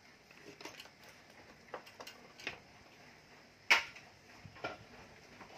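Irregular clicks and knocks of small electric motors and parts being handled and set down on a workbench, with one sharp, louder knock about two-thirds of the way in.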